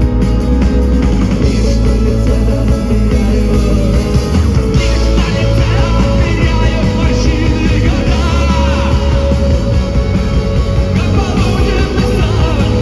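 A rock band playing live and loud on a festival stage: drums, bass and guitars, with a singer's voice coming in about five seconds in.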